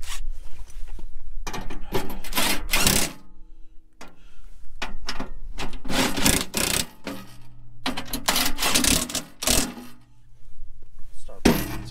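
DeWalt cordless impact driver hammering in short runs as it drives the mounting bolts through an aluminium racing seat's base. There are four runs of rapid clatter, each about one and a half to two seconds long, with short pauses between them.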